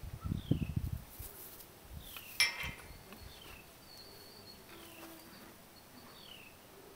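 Wind buffeting the microphone for about the first second, then a quiet stretch with a faint llama hum, a single sharp click about two and a half seconds in, and a short, high falling chirp repeating about every second and a half.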